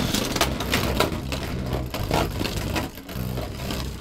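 Two Beyblade Burst spinning tops whirring on the plastic floor of a Cosmic Vector Beystadium just after launch, with scattered sharp clacks as they hit each other and the stadium wall.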